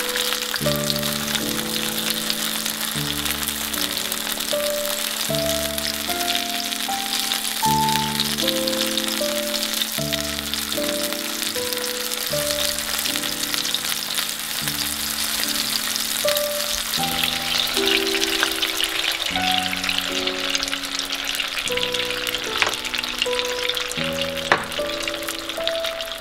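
Tomato slices sizzling in hot oil in a frying pan, the sizzle steady, with a couple of sharp taps near the end. A background music track with changing notes plays underneath.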